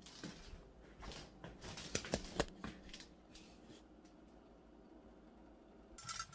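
Faint scattered clicks and rustles, then near the end the vapor valve on a stainless steel cookware lid starts to whistle and click rapidly. The valve sounding is the sign that the pot has come to a boil under the lid.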